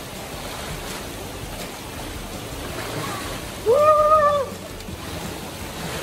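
Steady rushing of a shallow river with a man splashing through it, ducking under and standing up. A little under four seconds in, a high voice calls out once, held for almost a second.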